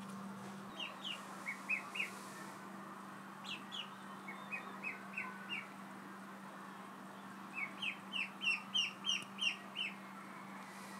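Ducklings peeping: short, high, falling peeps in three clusters, the last a quick run of about ten, over a steady low hum.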